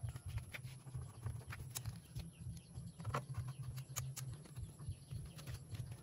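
Scattered light clicks and taps as a screwdriver works the screws on a window air conditioner's metal casing, over a steady low rumble.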